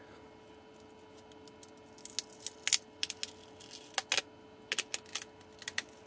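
Irregular small clicks and taps from hands handling a tape-wrapped lithium-ion battery pack with its wires and circuit board. The clicks start about a second and a half in and come in loose clusters, with the loudest a little before halfway and again near four seconds.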